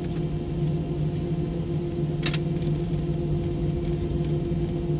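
Airliner's turbofan engines heard from inside the cabin: a steady hum of several fixed tones over a low rumble. There is one sharp click a little over two seconds in.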